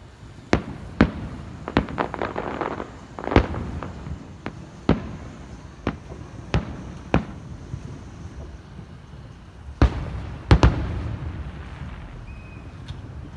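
Fireworks going off: about a dozen sharp bangs at irregular intervals, the loudest two, around three seconds in and near the end, followed by crackling that fades.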